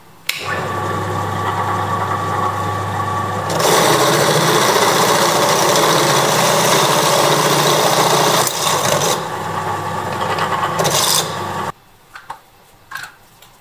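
Benchtop drill press switched on with a click, its electric motor running with a steady hum. From about three and a half seconds in, the twist bit cuts into a small metal plate, adding a loud harsh grinding noise. All of it cuts off suddenly near the end, followed by a few small clicks.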